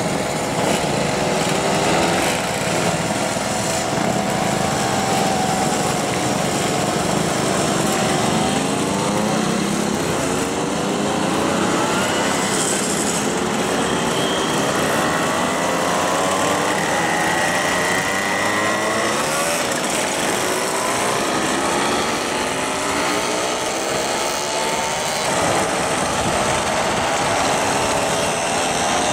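A procession of classic two-stroke mopeds riding past, many small engines buzzing at once, one after another revving up with rising pitch as they accelerate away.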